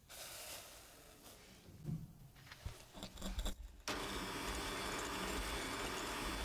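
Sugar poured into a glass bowl of frothy egg whites with a soft hiss, then a few light knocks and clinks. About four seconds in, an electric hand mixer starts and runs steadily, its wire beaters whipping the egg whites and sugar into meringue.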